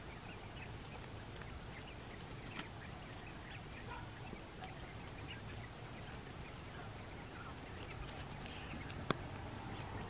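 Coturnix quail chicks peeping softly: scattered short, high chirps over a quiet background, with one sharp click about nine seconds in.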